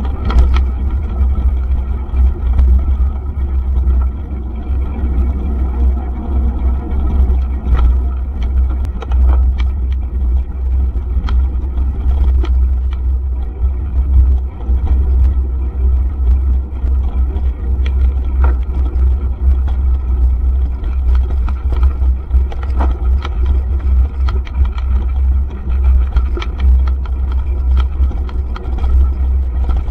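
Wind buffeting the microphone of a camera riding on a mountain bike, a loud, deep, fluttering rumble. Scattered clicks and rattles come from the bike running over the rough dirt track.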